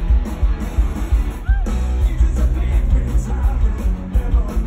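Rock band playing loud live, with electric guitars and drums over heavy booming bass, heard from the audience.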